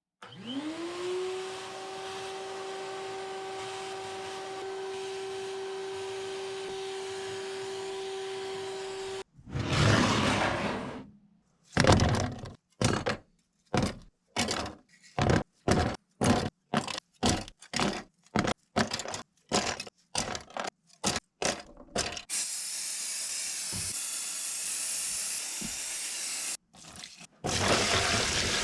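A small electric tool motor spins up to speed within the first second and runs at a steady pitch for about nine seconds. It is followed by a long run of short, sharp scraping and cracking sounds of uneven length, and then a steady hiss for the last several seconds.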